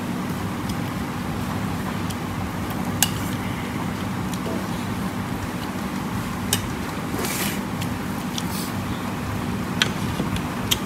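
Steady low rumble of road traffic, with four sharp clicks and a brief hiss about seven seconds in.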